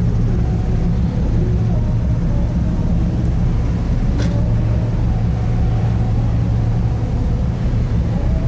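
Steady low engine rumble of a ship at sea, holding an even hum throughout, with one brief high chirp about four seconds in.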